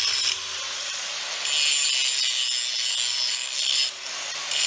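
Wire brush scouring the edges of welded iron, a continuous rasping scrape that swells louder and eases off in stretches. It is taking off the rough spots on the welded steel before painting.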